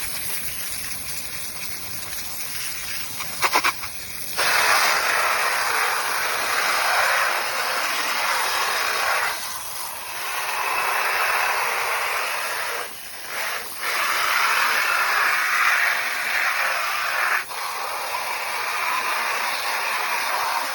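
A strong jet of water spraying onto the dirty fan parts, washing the grime off without any cleaning solution. It hisses steadily, gets louder about four seconds in, and goes on in several long stretches with brief breaks, then cuts off.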